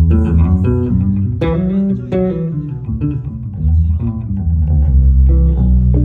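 Electric bass guitar playing a melodic line of plucked notes, with a few notes sliding up and down in pitch about a second and a half in.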